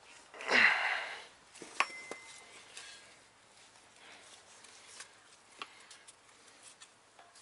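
A loud noisy sound that falls in pitch about half a second in, then scattered metallic clicks and taps of tools and engine parts being handled, one clink ringing briefly just under two seconds in.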